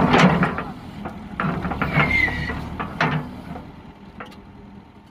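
JCB backhoe loader's diesel engine running, with several sharp clanks and a brief falling squeal about two seconds in. The sound fades away near the end.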